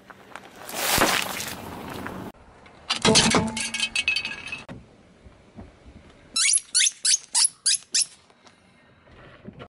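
A car tyre rolling over objects one after another: bananas squashed first, then a brittle green object cracking and crackling into shards about three seconds in, then a rubber duck giving a quick run of about six falling squeaks under the tyre near the end.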